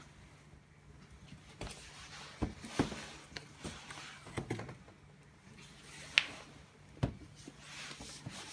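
Corrugated cardboard display box being handled with gloved hands: scattered knocks, taps and rustles as its panels and folding dividers are tipped over and set back upright, the sharpest knocks about six seconds in and again a second later.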